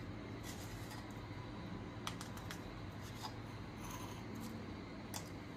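Light clicks and rustles from a steel mixer-grinder jar of fresh herbs being handled, a few scattered ticks over a low steady hum.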